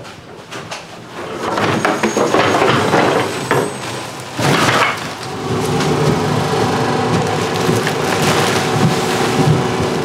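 Plastic trash bags rustling and crinkling as they are handled and carried, a loud, continuous crackle. A faint steady hum runs underneath from about halfway through.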